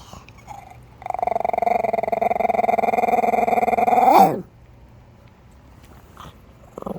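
Chihuahua giving one long vocalization of about three seconds, held steady and then dropping in pitch as it ends.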